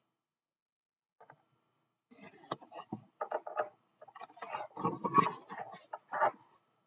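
A large picture book being handled and its pages turned: irregular papery rustles and small knocks, starting about two seconds in and loudest around five seconds.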